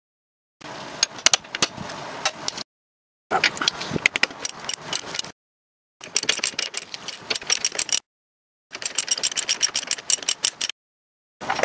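Hand ratchet clicking in quick runs as a bolt on the front brake caliper is turned. The sound drops out completely for under a second about every two seconds.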